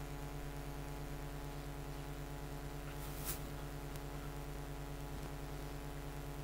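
Steady electrical mains hum, a buzz made of many even tones, with one short tick about three seconds in.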